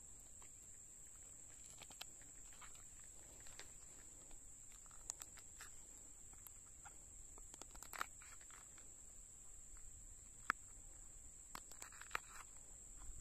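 Faint, steady high-pitched drone of insects, with scattered light clicks and taps, the sharpest one about ten and a half seconds in.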